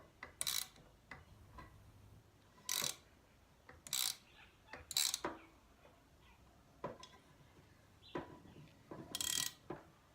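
Spanner turning a nut on a threaded rod to press a star nut into a fork steerer tube. It makes short bursts of metallic clicking and scraping, a handful of them, spaced a second or more apart.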